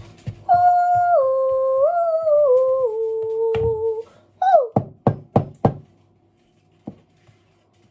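A person hums a short tune whose notes step down in pitch over about three seconds, then gives a brief falling vocal sound, followed by four quick knocks.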